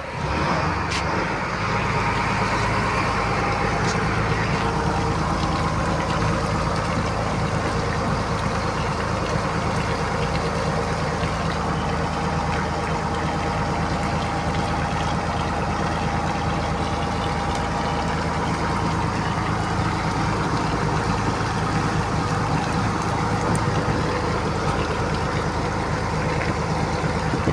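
Boat engine running steadily, a loud even drone with a low hum that holds level throughout.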